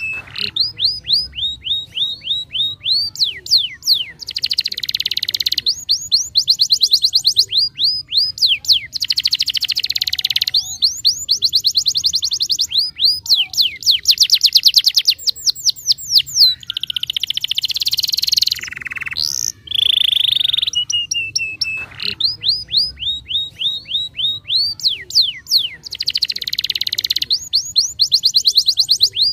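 Domestic canary singing a long continuous song: runs of rapidly repeated down-slurred notes, several a second, alternating with buzzy rolls and a few held whistled notes.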